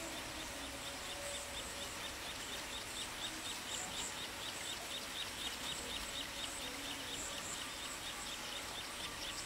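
Steady rapid chirping of insects and birds, about five short chirps a second, with brief higher calls now and then.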